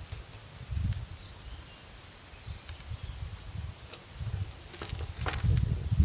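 Outdoor field ambience: a steady high insect trill over low, uneven rumbling noise. Near the end come a few sharp clicks, as metal parts of a mini tiller's tines are handled.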